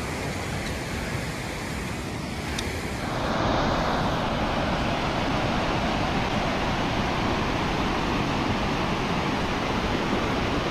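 Steady rush of Hidden Falls and the snowmelt creek tumbling over rocks below it, an even hiss of water. About three seconds in it gets louder and fuller.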